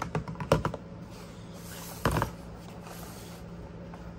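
Hard plastic clicks and knocks as the Acer Aspire 5742 laptop's battery is unlatched and pulled from its bay and the laptop is handled: a quick run of clicks in the first second, then one louder knock about two seconds in.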